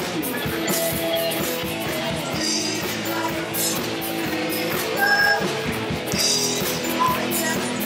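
Live band playing a rock song, with electric guitar and a drum kit with cymbals, and a woman singing into a microphone over it.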